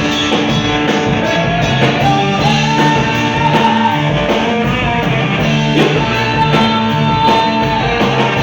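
Heavy metal band playing live: electric guitar holding long lead notes over bass and steady drum hits.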